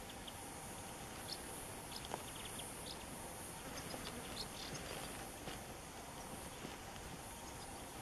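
Faint outdoor ambience: a steady high insect hiss with scattered short, high chirps from small birds.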